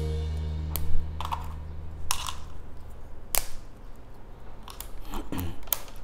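Hard plastic toy pieces snapping and clicking as they are twisted off their moulded plastic frames: several sharp snaps spaced a second or so apart, the loudest about a second in.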